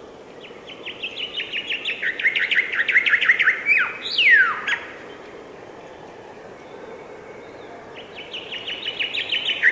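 A songbird singing a fast run of short repeated notes that steps lower partway through and ends in a quick downward-slurred note about four seconds in. The song starts again about eight seconds in, over a steady background hiss.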